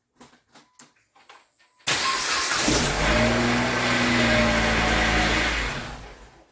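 Dodge Caliber engine cranking and catching about two seconds in, then running with a steady note before the sound dies away near the end. It starts now that the corroded starter relays have been replaced, curing the no-crank fault.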